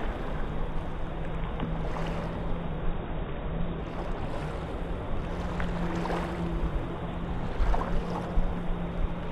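Small waves lapping and washing over sand at the water's edge, with little splashes now and then, over a steady low hum.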